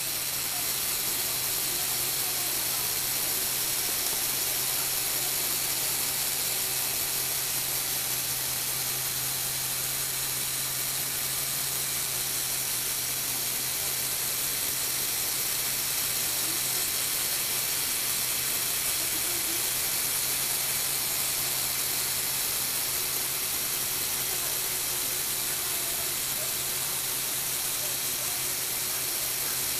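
Lego Technic electric motors and gear train running continuously, a steady whirring hiss over a low hum, as the mechanism moves the model cars mounted on top.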